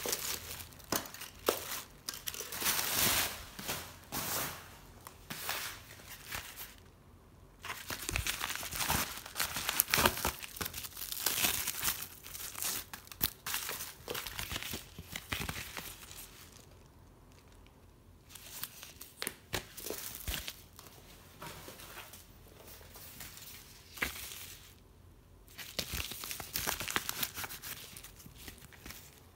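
Hands crinkling and rustling packing paper, a padded mailer and plastic card sleeves, in irregular bursts with a few short pauses.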